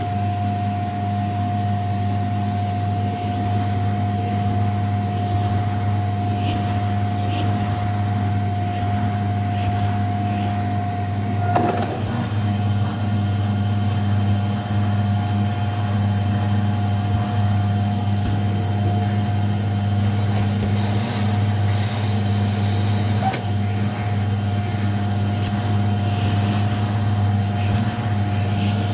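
Vacuum cleaner running steadily on shag carpet: a constant low motor hum with a steady whine above it, and a brief knock about twelve seconds in.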